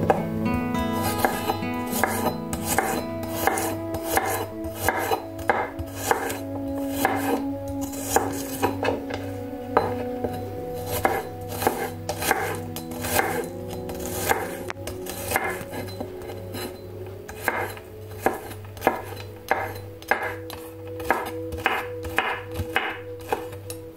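Santoku knife chopping garlic cloves on a wooden cutting board: runs of quick, irregular knocks of the blade against the board, several strokes a second at times.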